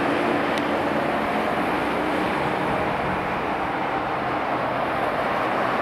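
Jet engines of an Airbus A321 rolling out on the runway after landing, heard from a distance as a steady rushing noise.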